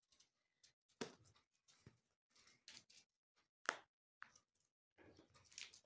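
Fresh green fava bean pods being split and stripped by hand: faint, scattered snaps and rustles, the sharpest about two-thirds of the way in.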